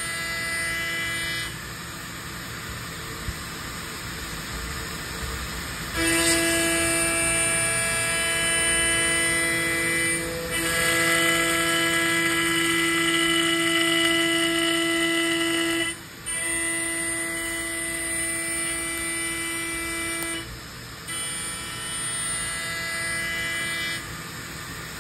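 CNC router spindle milling an aluminium plate: a steady whine with several tones that gets much louder about six seconds in as the cut loads up. It breaks off for a moment near the middle and then steps down in stages toward the end.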